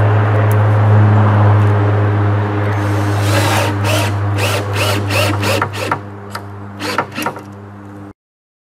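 Cordless drill driving a 3-inch screw through a 2x2 into a 2x4 post. The motor runs steadily, with an uneven run of sharp clicks over it in the second half, and the sound cuts off abruptly near the end.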